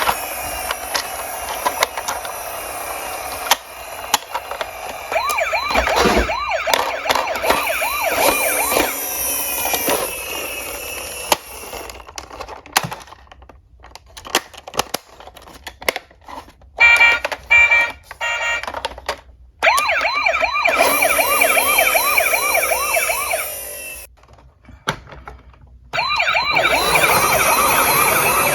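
Electronic sirens of toy ambulance and police cars, several overlapping, warbling quickly up and down with a steady high beeping tone mixed in. They drop out twice, leaving scattered clicks and rattles.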